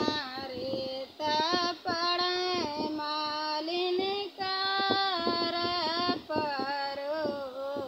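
A woman singing a North Indian folk wedding song (vivah geet) solo and unaccompanied, in long held notes that bend and waver, phrase after phrase with short breaths between.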